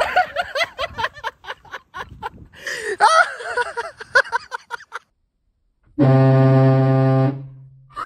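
Hornblasters Safety Horn, a fire-truck-style air horn on a pickup, blasting once about six seconds in: one loud, steady, low-pitched tone lasting about a second and a half, then fading away. Voices come before it.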